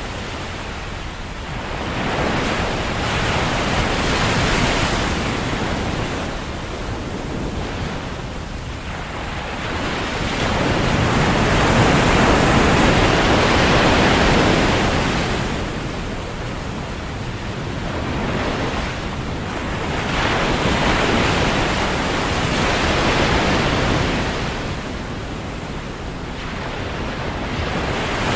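Ocean surf washing up on a sandy beach: a steady rush of breaking water that swells and fades every few seconds, with the biggest surge about halfway through.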